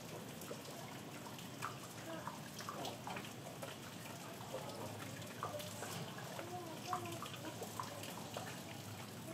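Rain falling steadily, with scattered drips and splashes of water through the haze. Faint human voices can be heard in the background partway through.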